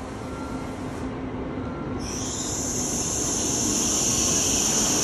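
N700-series Shinkansen bullet train running in alongside the platform, its rumble growing steadily louder. About two seconds in, a strong high-pitched hiss or squeal sets in and keeps building as the carriages pass.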